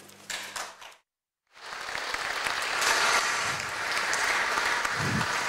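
An audience applauding. It starts about a second and a half in, after a brief gap of dead silence.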